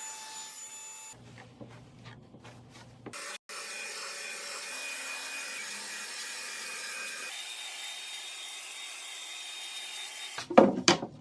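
A power tool runs steadily against wood with a high whine whose pitch steps up about seven seconds in. A few loud knocks follow near the end.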